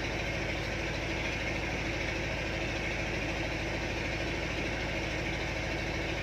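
Steady hum of an engine running aboard a tugboat, even and unchanging.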